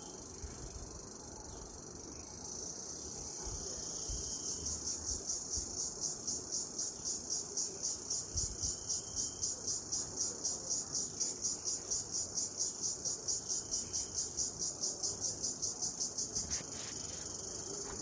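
High-pitched insect song. A steady buzz runs throughout, and about four seconds in a louder pulsing call joins it at about three pulses a second, stopping shortly before the end.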